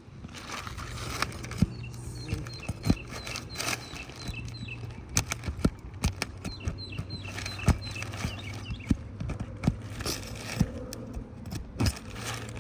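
Irregular sharp knocks and clacks of hands and tools working on an asphalt shingle roof, as the tarp and damaged shingles are pulled up, over a steady low hum.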